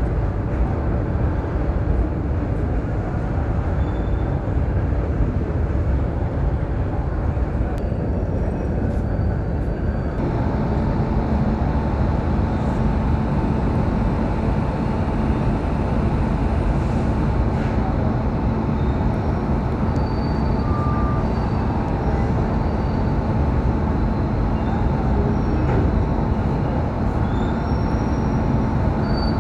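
Electric locomotive standing at the platform with its auxiliary machinery (blowers and compressor) running: a steady, loud mechanical noise, joined about ten seconds in by a steady hum and a higher whine.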